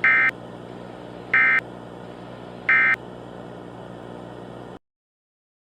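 Emergency Alert System end-of-message code: three short bursts of data tones, evenly spaced a little over a second apart, marking the end of the alert. A steady low hum runs under them and cuts off abruptly near the end.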